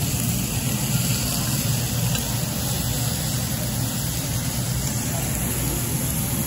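Steady noise of a tabletop barbecue grill: meat sizzling over a constant low hum.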